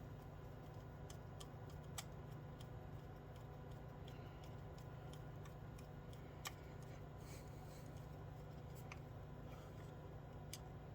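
Scattered small metallic clicks and taps of screws and carburetor parts being handled and fitted, the sharpest about two seconds in and again about six and a half seconds in, over a steady low hum.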